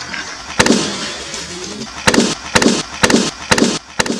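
Balloons popping: about seven sharp bangs, one about half a second in and the rest in a quick run from about two seconds in.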